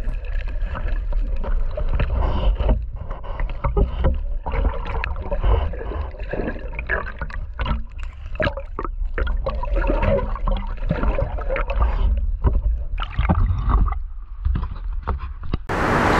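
Sea water sloshing and gurgling around an action camera held just under the surface, muffled, with a heavy low rumble and many small clicks as waves wash over the housing. Near the end it changes to open-air surf breaking on rocks.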